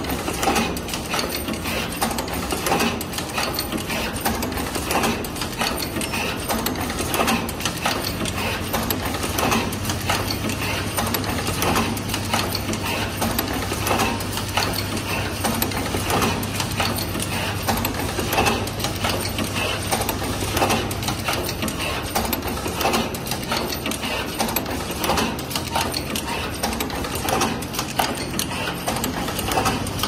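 Automatic two-pin power cord plug assembly machine running: a continuous rapid clatter of mechanical clicks and knocks over a steady low hum.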